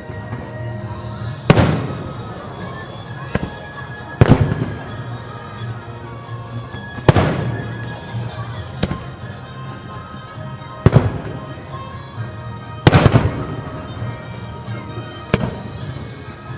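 Aerial firework shells bursting at a fireworks display: about six loud booms a couple of seconds apart, each trailing off in a short rumble, with music playing steadily underneath.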